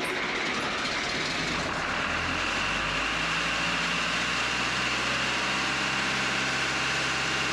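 The John Deere diesel engine of an Ingersoll Rand portable air compressor running steadily after a hard cold start; its low engine note firms up about two seconds in.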